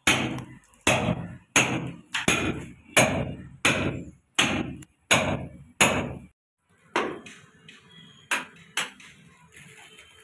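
Hand hammer striking a steel chisel to cut a groove in a brick-and-plaster wall for concealed electrical conduit: a steady blow about every 0.7 s, each ringing briefly. After about six seconds the regular blows stop and only a few fainter knocks follow.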